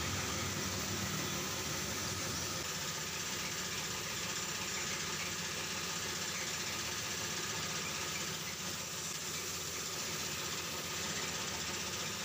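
Steady hiss of compressed air from a gravity-feed spray gun spraying paint, with a machine running steadily underneath, likely the air compressor that feeds it.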